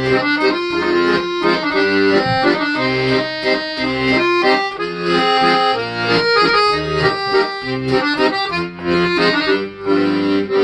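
Accordion playing a tune: a melody line over a rhythmic bass-and-chord accompaniment.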